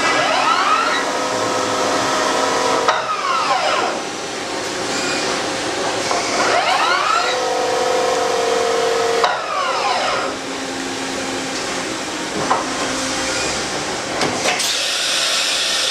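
Okuma MC-50A CNC vertical machining center running a cycle: its motors whine up and back down in pitch four times, about three seconds apart. Steady machine tones carry on between the whines.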